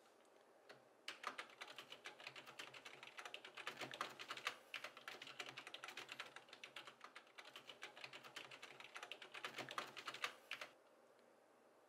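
Fast typing on a computer keyboard: a dense, uneven run of key clicks that starts about a second in and stops abruptly near the end.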